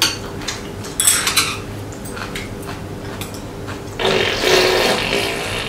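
Eating sounds at a meal: metal chopsticks and spoons clicking and scraping against bowls and plates, with a brief crackle about a second in and a louder, longer noisy stretch of eating about four seconds in.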